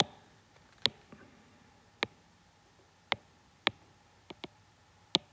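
About eight sharp, separate clicks at uneven spacing, made while working a computer's drawing and scrolling controls.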